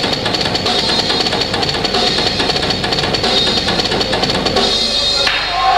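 Heavy-metal drum kit solo: fast, dense strikes of bass drums, snare and cymbals. The playing stops abruptly about five seconds in.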